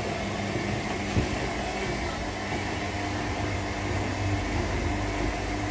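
Several washing machines running at once: a steady mechanical hum of motors and drums, with a single knock about a second in.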